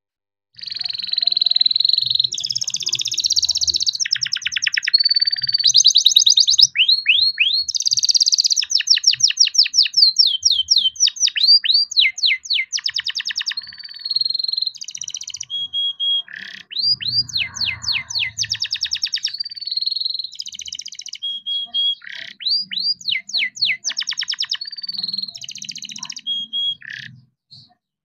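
Young domestic canary singing a long, near-continuous rolling song: rapid trills of repeated falling notes, fast rolls and short held whistles, starting about half a second in and stopping just before the end.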